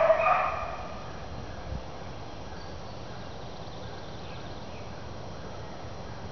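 Bluetick beagle baying once at the start, a single pitched bawl that fades within about a second: a rabbit hound giving tongue as she trails a cottontail. Then a steady background hiss.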